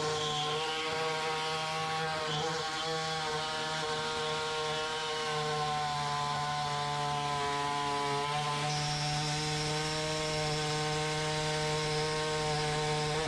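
Pneumatic reciprocating air saw cutting the steel reinforcement plate along the edge of the fiberglass floor hole, running steadily at an even pitch.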